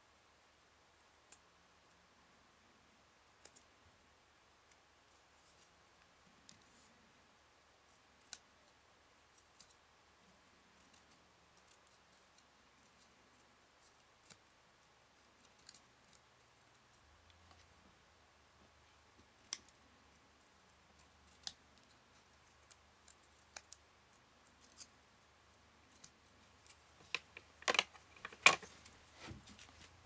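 Small craft scissors snipping a thin chipboard strip: sparse, quiet clicks of the blades, with a few louder clacks near the end.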